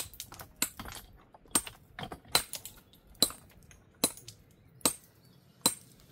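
A hammer striking stone in steady blows, about one every 0.8 seconds, each with a short metallic ring: a stone being trimmed to shape for a dry stone wall.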